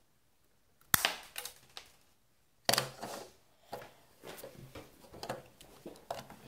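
Lego-brick cap gun snapping twice, sharply, about a second in and again near three seconds, each snap followed by a short plastic rattle. Lighter clicks of the plastic bricks being worked follow.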